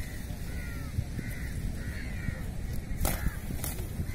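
Crows cawing several times in short calls over a steady low rumble, with one sharp noise about three seconds in.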